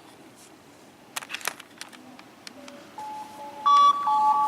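Phone emergency alert tone for a severe weather warning: a loud steady electronic tone starting about three seconds in, switching between two pitches. A few faint clicks come before it.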